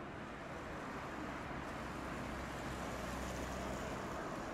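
Street traffic: a Nissan NV200 van drives off close by with a low engine hum, over steady road and tyre noise.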